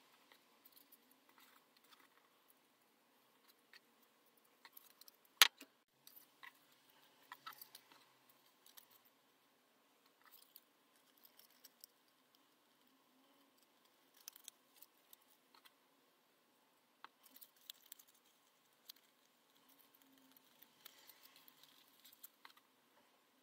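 Faint rustling and small crackling ticks of folded copy paper being handled and pressed together as papercraft parts are glued. There is one sharp click about five seconds in.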